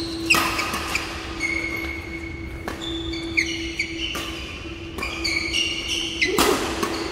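Doubles badminton rally: rackets strike the shuttlecock about once a second, with shoes squeaking on the court mat between strokes.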